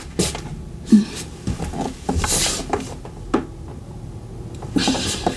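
Tarot cards being handled and searched through on a table: a few light taps and knocks, with a brief rustling slide of cards a little past two seconds in and again near the end.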